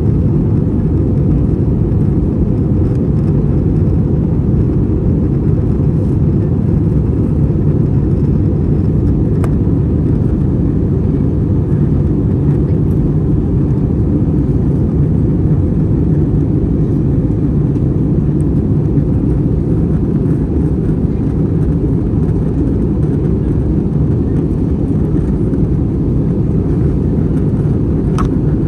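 Steady low roar inside the cabin of an Airbus A321 in flight: the IAE V2500 engines and the airflow over the fuselage, unchanging throughout.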